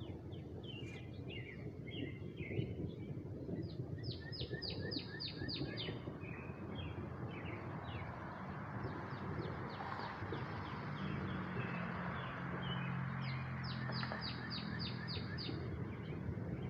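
Songbirds chirping, with two runs of about eight quick falling notes each, one about four seconds in and one near the end. Under them runs a steady low rumble, with a low hum joining it from about halfway.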